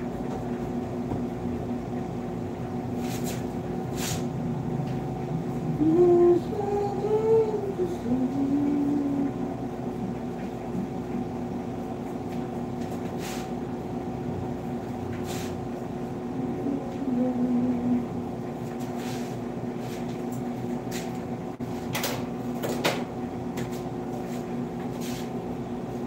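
Electric hair clippers running with a steady hum while a haircut is trimmed. A voice is heard briefly around 6 to 9 seconds in and again near 17 seconds, and there are a few sharp clicks.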